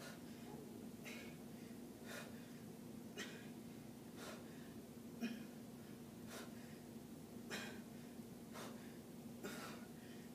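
A woman breathing with effort in a steady rhythm, about one breath a second, while pressing dumbbells overhead, faint over a steady low hum.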